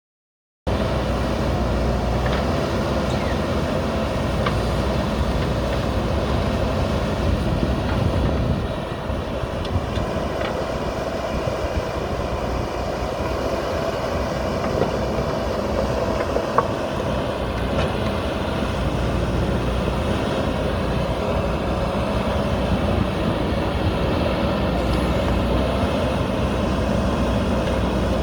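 JCB backhoe loader's diesel engine running steadily, cutting in suddenly at the start, easing briefly about eight seconds in, with a single sharp knock near the middle.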